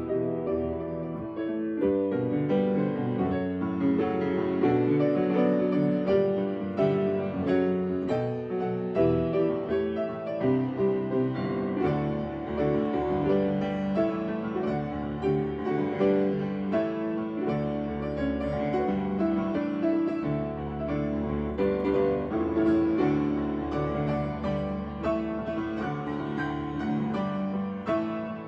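Solo piano playing a pop-song arrangement, with chords and a melody running on without a break.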